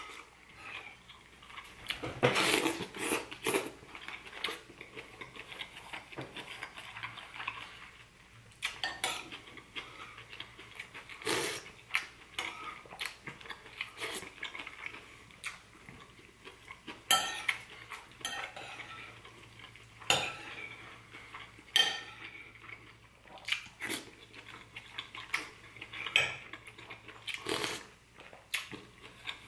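Metal spoon clinking and scraping against a ceramic soup bowl, in irregular sharp clicks every second or two, with sips of broth from the spoon in between.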